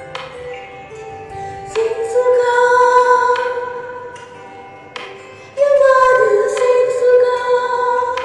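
Worship music: a woman's voice sings two long held notes over backing chords, the second note starting about halfway through.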